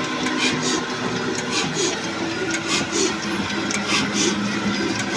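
Old Ruston Hornsby diesel engine running steadily under load, driving a flour mill, with a regular rhythmic beat.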